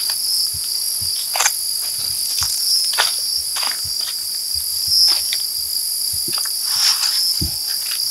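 A steady, high-pitched chorus of night insects. Scattered brief rustles and clicks are mixed in.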